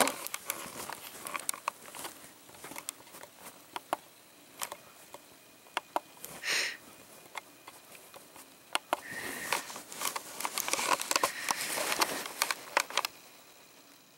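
Camera handling noise: cloth rubbing and brushing against the microphone, with scattered clicks and knocks and a short hissy rustle about six and a half seconds in.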